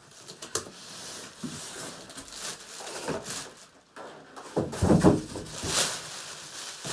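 Handling noises of a TV and its packaging: scattered knocks, clicks and rustles, with a louder cluster of bumps and rustling about five seconds in.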